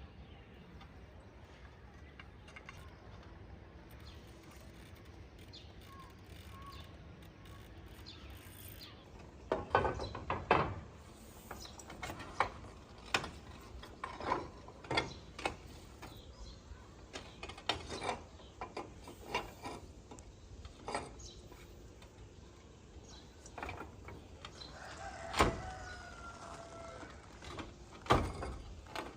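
Roof tiles being handled and shifted into place on a roof: irregular knocks, clatters and scrapes that begin about ten seconds in, after a stretch of faint background.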